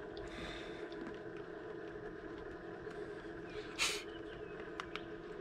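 A small motor humming steadily, with a few light clicks and a short burst of noise about four seconds in.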